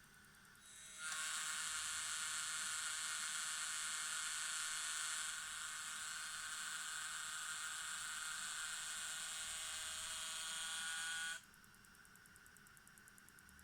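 Cooling fan inside a Xiaomi Mi Drone 4K's camera humming with a high, buzzing whine. It starts about a second in, eases slightly about halfway and cuts off suddenly near the end. The hum is the fan noise the owner is complaining about.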